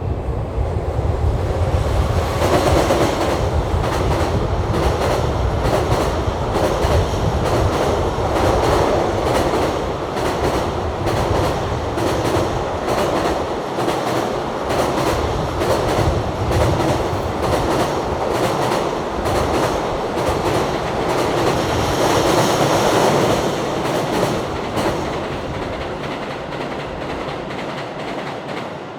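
Electric train passing, its wheels clattering rapidly over the rail joints for about twenty seconds, then fading away near the end.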